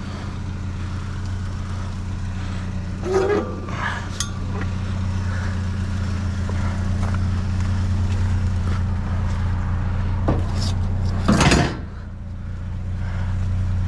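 A vehicle engine idling with a steady low hum, while scrap metal and wire are handled with a few clinks and knocks.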